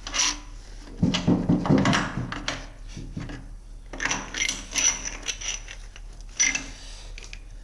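Small metal engine parts being handled: light metallic clinks and knocks, in a cluster about a second in, another around four to five seconds in, and a last one late.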